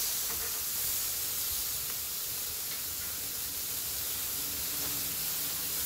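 Thin marinated pork chops sizzling steadily on a hot grill grate as they sear.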